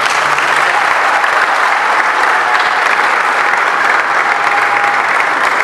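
Audience applauding steadily, many people clapping together.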